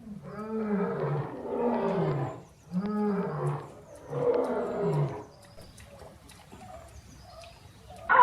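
Lion roaring: a series of calls, each rising then falling in pitch, in two bouts over about five seconds, then only faint background.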